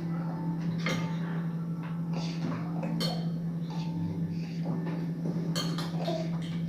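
Cutlery clinking and scraping on plates during a meal, a scatter of short irregular clatters over a steady low hum.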